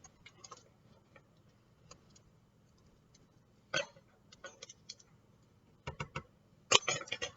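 Kitchen utensils clinking and knocking against a mixing bowl as butter and strawberry juice are added to buttercream frosting. The strikes are scattered, with a quick run of three and the loudest cluster near the end.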